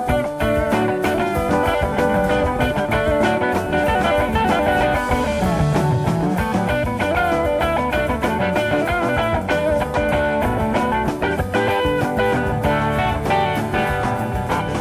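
Gospel band playing an instrumental passage: guitar over drums with a steady beat.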